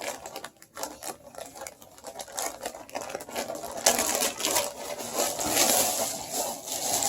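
Rustling and crinkling of packaging being handled, with scattered small clicks and taps; the rustling gets louder and denser from about four seconds in.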